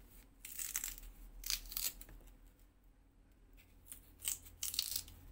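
A utensil scraping and gouging out the raw flesh of a radish to hollow it. There are a few short rasping scrapes, a pause in the middle, then another run of scrapes.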